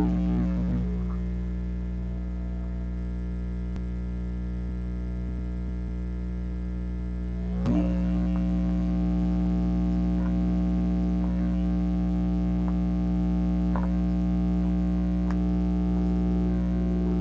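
Steady electrical buzz, a hum with many even overtones, from the bench's electronics and the MOSFET test circuit. A click comes about eight seconds in, after which the buzz is slightly louder with a stronger higher tone.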